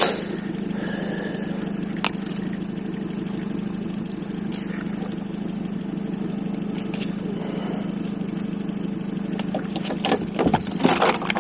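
Boat motor idling steadily with an even hum, a few faint clicks over it. A burst of louder noise near the end.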